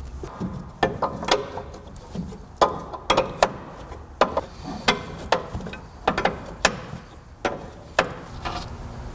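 Wrench clicking and clinking on a GMT400 truck's front ball joint stud nut as it is worked loose. The clicks come singly or in pairs, about one to two a second, each with a short metallic ring. The stud tends to spin with the nut.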